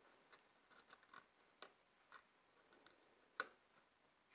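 Faint, scattered clicks and taps of a plastic thermostat back plate being handled and positioned against the wall, two of them sharper, about a second and a half in and just after three seconds.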